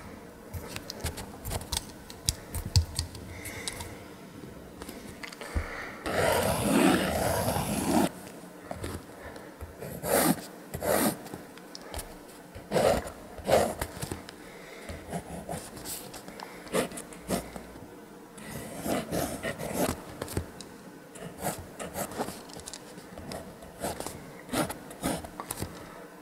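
Pentel Graph Gear 1000 mechanical pencil scratching across Fabriano sketchbook paper in a run of short strokes, with one longer, louder continuous stroke about six seconds in.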